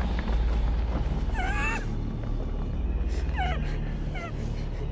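Three short, high, wavering cries, about a second in, past the middle and near the end, over a steady low hum.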